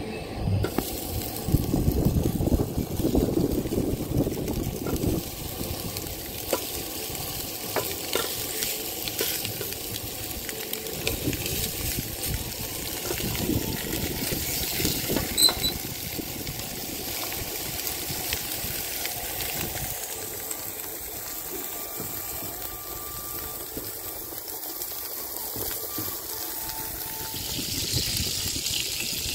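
Sucuk frying in a non-stick pan, sizzling steadily in its own fat. Clicks and knocks of the meat being laid in and moved around the pan come mostly in the first half.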